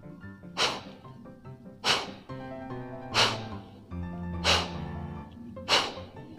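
Kapalbhati breathing: five sharp, forceful nasal exhalations, evenly spaced about every second and a quarter, over background music with sustained notes.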